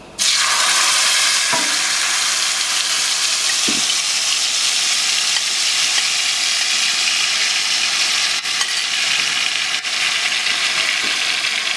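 Wet green herb-and-chili puree hitting hot oil with cumin seeds: a loud sizzle starts suddenly and goes on as a steady hiss of frying, with a few faint taps now and then.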